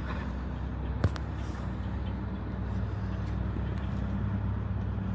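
A steady low engine hum, with a single sharp click about a second in.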